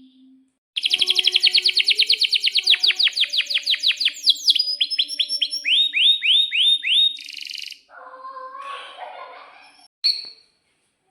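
Canary singing a long song phrase: a fast trill of repeated high notes that gradually slows, then a run of downward-swooping notes, a short buzzy note and some lower, rougher notes, with one brief note about ten seconds in.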